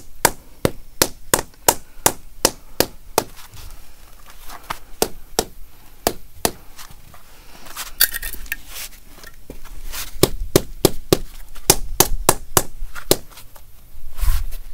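Hammer tapping a concrete block down into fresh cement mortar to bed it level: quick, sharp taps about three a second in two runs, with a few scattered taps between them and a duller, heavier knock near the end.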